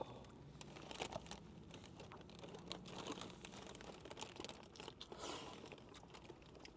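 Faint crinkling of paper food wrappers, with scattered small clicks and rustles as fried chicken sliders and fries are handled while eating.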